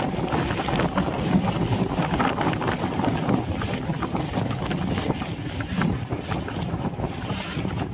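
Suburban electric multiple-unit (EMU) train running along the line, heard from an open doorway: steady wheel-on-rail rumble with scattered clicks, and wind buffeting the microphone.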